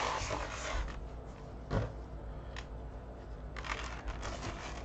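Faint rustling and scraping of a cardboard trading-card box being handled and pulled open. There is a soft knock a little under two seconds in and a cluster of light rustles near the end.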